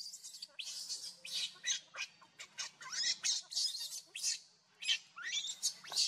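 Infant macaque screaming in distress, a rapid string of short, high-pitched squeals, some sliding up or down in pitch, with a brief lull a little past the middle.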